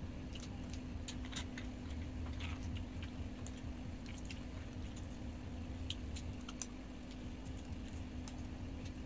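Scattered light clicks and crackles of eating at a table: shrimp shells being peeled by hand and chopsticks tapping in a bowl, over a steady low hum.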